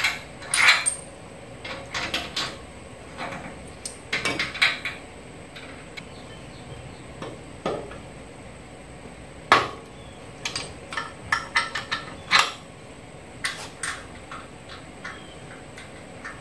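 Irregular metal clinks and knocks of a rear shock absorber being test-fitted onto its steel mounts, its eyes and bolts tapping against the brackets. The sharpest knock comes about nine and a half seconds in.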